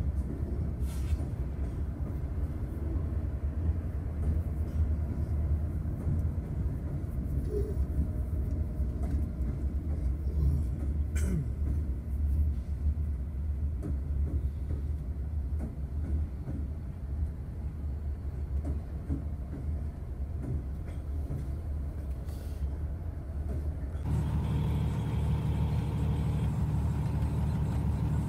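A string of BNSF diesel locomotives moving slowly past, their engines giving a deep steady rumble with a few scattered clicks. About 24 s in, the sound cuts abruptly to a different, steadier engine hum with several level tones.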